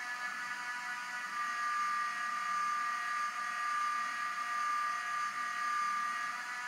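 A steady whine made of several held tones over a background hiss, with no break or change in rhythm: a constant machine or electrical hum.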